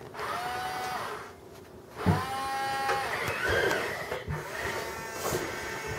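Small electric gear motors of radio-controlled toy construction vehicles whining in several short runs, each rising in pitch as it spins up, with a quieter gap between one and two seconds in.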